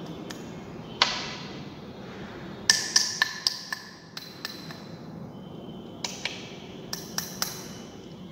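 Small glass beaker clinking as weighed cement powder is tapped into it from a small container: a dozen or so sharp, ringing glass taps, one about a second in and the rest in clusters around three and seven seconds in.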